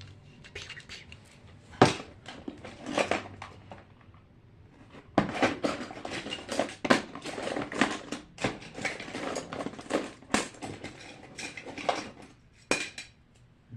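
Hard plastic fidget toys clattering and knocking together as a drawer of them is rummaged through. One loud knock comes about two seconds in, then a dense run of clicks and clacks, with one more sharp knock near the end.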